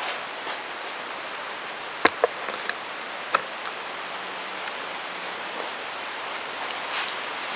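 Steady hiss, with a quick run of sharp knocks and clicks about two seconds in and a last one near three and a half seconds.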